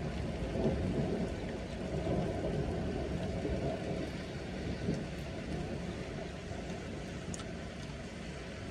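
Steady rain with a long, low rumble of distant thunder that is strongest in the first few seconds and slowly fades.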